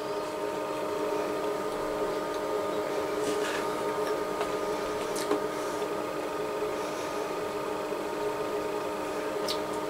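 Steady electrical hum of a running appliance, several steady tones held together at an even level, with a few faint clicks.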